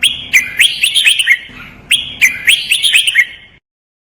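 Red-whiskered bulbul singing two quick phrases of clear, bubbling whistled notes, the second phrase a repeat of the first. This is a master song played to teach caged bulbuls to sing.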